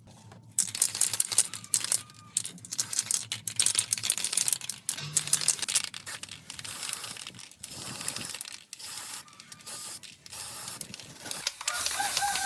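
Irregular scratchy scraping and rubbing strokes, typical of hand work on rusty metal parts during a restoration, then a steady hiss starting near the end.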